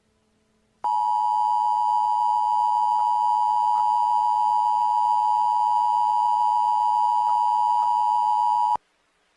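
Emergency Alert System attention signal: a steady, loud two-tone beep. It starts about a second in, holds for about eight seconds and cuts off abruptly. It signals that an emergency alert message is about to follow.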